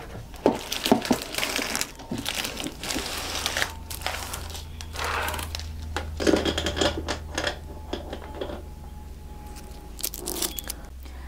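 Handling noise as canisters with wooden lids are moved about and set down on a counter: crinkling and rustling with light knocks and clicks, busiest in the first half and quieter near the end.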